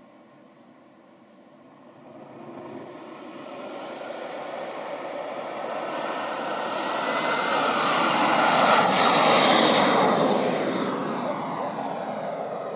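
Turbine engine of a radio-controlled model jet spooling up, its high whine rising in pitch, then running at full power for take-off. The noise grows louder to a peak about nine seconds in, then falls in pitch and fades as the jet passes and climbs away.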